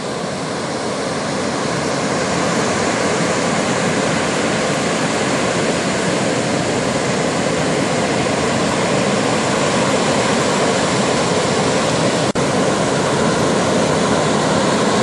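Breaking ocean surf: a steady, even rush of whitewater and waves.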